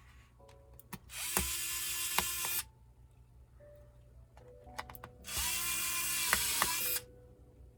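Small electric screwdriver running in two bursts of about a second and a half each, driving laptop screws.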